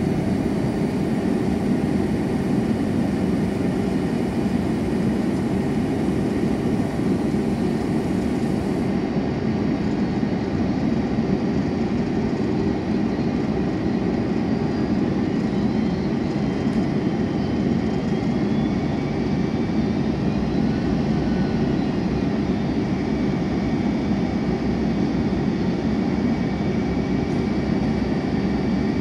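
Steady roar of engine and airflow inside the cabin of a Boeing 767-300 descending on approach to land, with a faint high whine that slides up and down in pitch midway.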